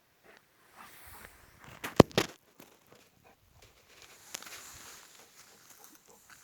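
Scuffling and rustling, with a quick cluster of sharp knocks about two seconds in and a softer rustle a couple of seconds later.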